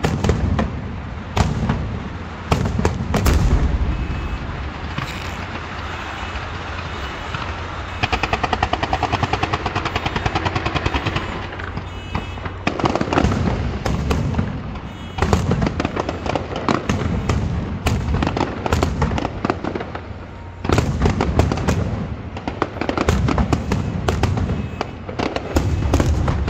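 Aerial fireworks shells bursting over and over in quick succession, with a rapid run of crackling reports lasting about three seconds in the middle.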